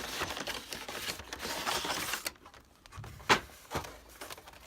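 Cardboard and plastic packaging of a trading-card box being handled: rustling for about two seconds, then a few sharp clicks or taps, the loudest one a little past three seconds in.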